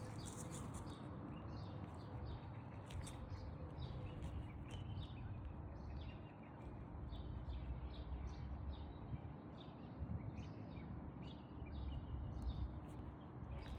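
Small birds chirping repeatedly in short calls over a steady low rumble of outdoor background noise.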